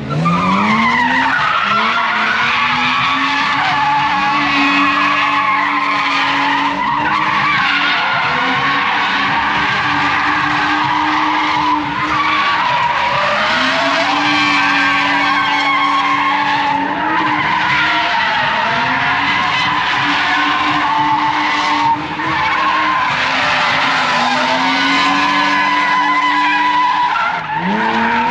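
Drift car's engine revving up and held at high revs while its tyres squeal continuously through long slides. The revs dip briefly and climb again about every five seconds.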